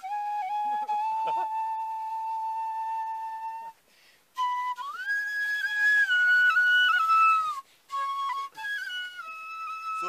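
Side-blown bamboo flute playing a slow melody. It holds one long note for nearly four seconds, breaks off briefly, then plays a phrase that jumps higher and steps back down, with a few shorter notes near the end.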